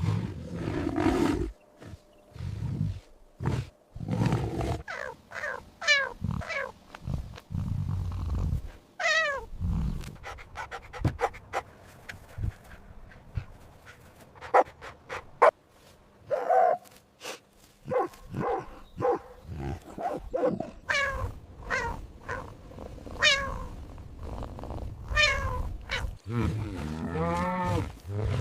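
Cat vocalizations: low growling roars in the first few seconds, then a long run of short pitched calls that rise and fall, with one longer drawn-out call near the end.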